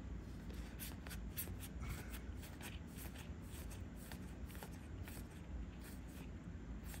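Trading cards being handled and slid over one another: soft, irregular ticks and rustles of card stock.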